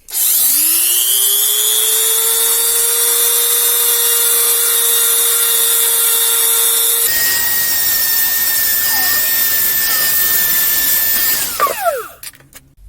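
Dremel rotary tool spinning up to a steady high whine while it grinds out the inside of an acrylic ring blank. The sound changes abruptly about seven seconds in, and the motor winds down with a falling whine near the end.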